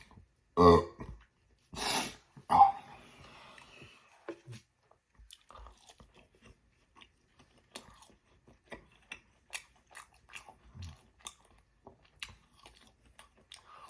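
Close-miked chewing of battered fried chicken strips: crisp crunches and small wet mouth clicks, scattered and uneven. A few louder short vocal sounds come in the first three seconds.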